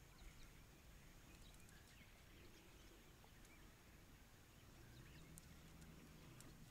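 Near silence: faint outdoor background with a few faint, short high chirps and tiny ticks.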